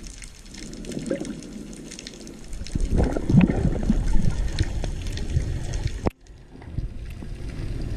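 Underwater water noise of a diver moving, heard through the camera housing: a steady swirling and bubbling that grows louder about three seconds in. It drops out briefly about six seconds in, then resumes.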